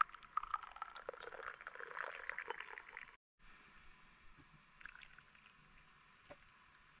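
Khash broth being strained: liquid pouring and splashing, with small knocks, for about three seconds. It breaks off suddenly and is followed by fainter clinks and movement.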